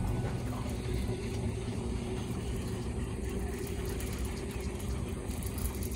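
Boat motor running steadily at trolling speed: a constant low hum with a steady tone above it.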